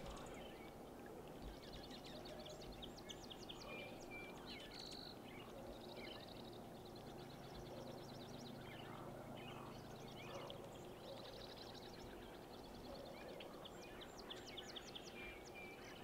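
Faint calls of small songbirds, dark-eyed juncos of the Oregon form: short high chips and quick dry trills, repeated throughout, over a steady low background hiss.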